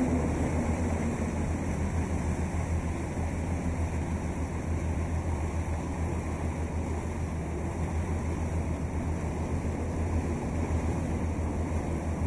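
A boat's engine running steadily with a low rumble, under a haze of water and wind noise.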